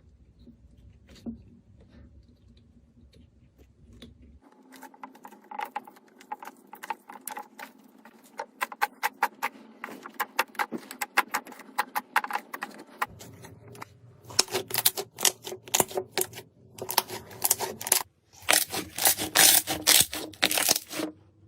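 Slime being squeezed and pressed by hand, making rapid trains of sharp crackling clicks, typical of crunchy slime. The sound changes abruptly about four, thirteen and eighteen seconds in, growing louder in the last part.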